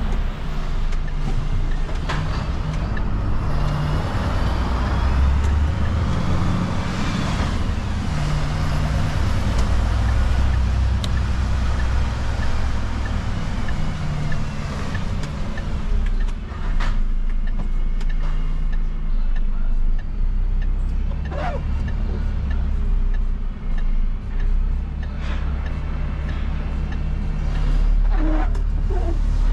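Refuse truck's diesel engine running while it drives, heard from inside the cab, with steady road noise. The engine note shifts up and down as the truck speeds up and slows.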